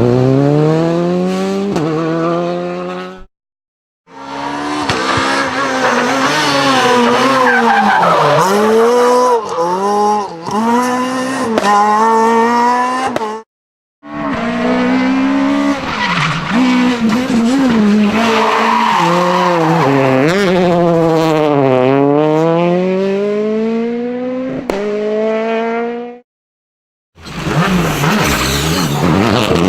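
Rally car engine revving hard, its pitch repeatedly climbing and dropping through the gear changes. It comes in four runs broken by three brief silences.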